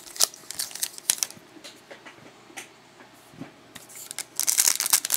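Trading cards handled with scattered light clicks and rustles, then a trading-card pack wrapper crinkling loudly as it is opened, starting about four and a half seconds in.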